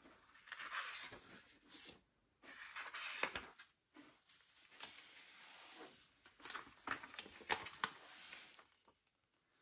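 Paper rustling as a book's pages are turned and handled: several soft swishes with a few sharp taps.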